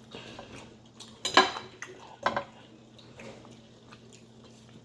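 Cutlery and plates clinking during a meal: two sharper clinks about a second apart, near the middle, among small faint clicks.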